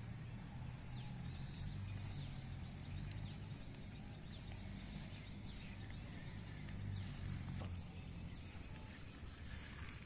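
Rural outdoor ambience: scattered short bird chirps and a faint steady high insect pulsing over a low rumble.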